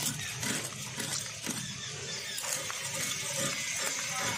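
Hilsa fish being scaled with an iron blade: a run of short, irregular scraping strokes as the scales come off.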